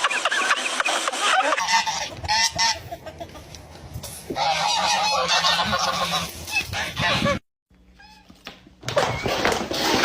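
Honking animal calls in several short segments, each cut off abruptly and followed by the next, with a brief gap of near silence about three-quarters of the way through.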